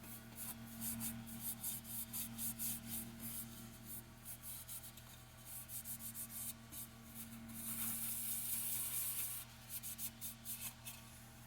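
A cloth or paper towel rubbing linseed oil onto a mahogany bowl: many quick, light rubbing strokes, with a longer hissing wipe about eight seconds in, over a faint steady hum.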